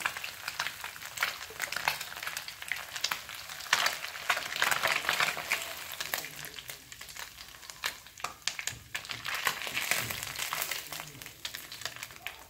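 Small chelwa fish frying in hot refined oil: a steady sizzle with crackles, and the clicks and scrapes of a slotted steel spatula turning and lifting the fish out of a non-stick pan.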